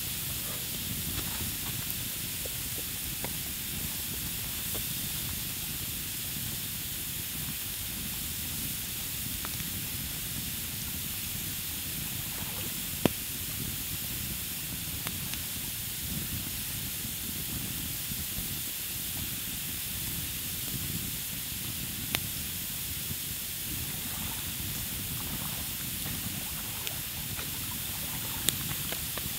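Steady hiss of rain falling, with three sharp single taps several seconds apart, the first about halfway through and the last near the end.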